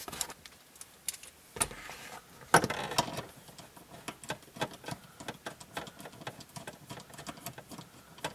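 Small metal bolts and a hand tool being handled while the bolts are fitted, making a run of sharp little clicks and rattles. There is a louder clatter about two and a half seconds in, then a steadier string of ticks.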